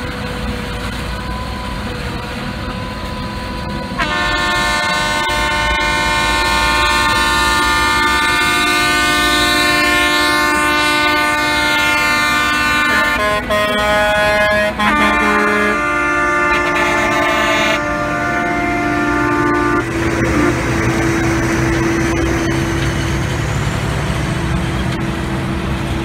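Self-propelled forage harvesters chopping corn for silage, their heavy engines running. About four seconds in, a loud steady whine with many overtones sets in, and its pitch jumps a few times.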